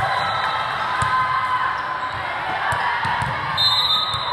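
Busy volleyball hall: many voices chattering across the courts, dull thuds of volleyballs being hit and bouncing on the court floor, and a short whistle near the end.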